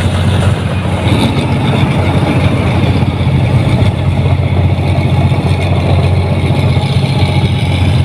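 Diesel engine of a New Holland 1545 combine harvester running steadily as the machine drives along a road, a deep, loud engine note with a fast even pulse.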